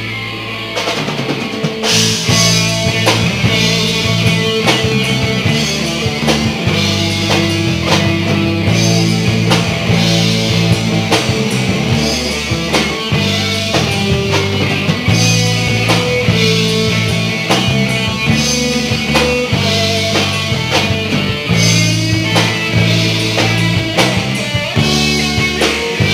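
Live rock band playing an instrumental break without vocals: electric guitar over bass and a drum kit, with the cymbals coming in about two seconds in.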